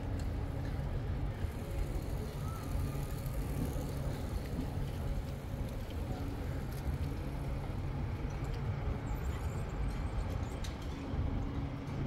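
City street traffic: a steady low hum of car engines, with a few faint clicks.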